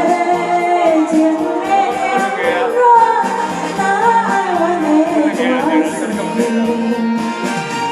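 Song music: a wavering lead melody over band accompaniment, from a live karaoke-style performance of a Taiwanese ballad.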